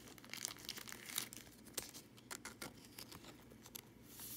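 Trading cards being handled and sorted by hand, with soft scattered rustles and taps and crinkling of a foil card-pack wrapper, denser near the end.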